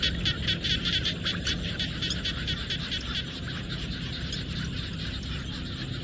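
A frog and insect chorus in rice fields. Rapid pulsed calls repeat about six times a second and fade after two or three seconds, over a steady high insect trill.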